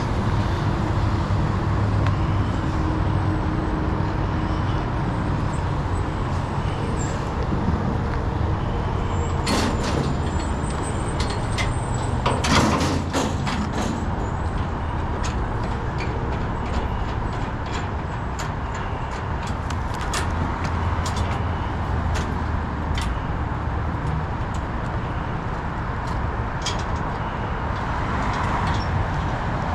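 Vehicle on the move: steady engine and road rumble, with scattered clicks and knocks and a louder cluster of rattles about ten to fourteen seconds in.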